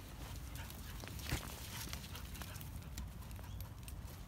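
Scattered crunching footsteps on sandy gravel, with one slightly louder step about a second in, over a steady low rumble.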